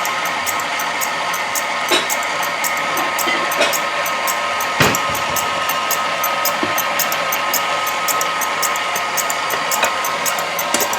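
KitchenAid stand mixer motor running steadily at speed 4, driving its metal meat grinder attachment, with a steady whine. A few knocks from handling come through, the loudest about five seconds in.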